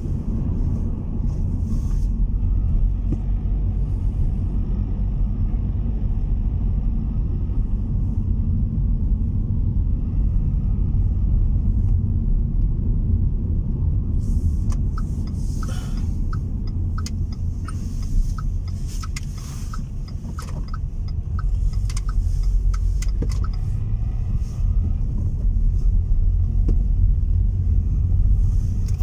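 Steady low rumble of a car's engine and tyres heard from inside the cabin while driving. About halfway through, the turn-signal indicator starts ticking evenly, about twice a second, for roughly ten seconds.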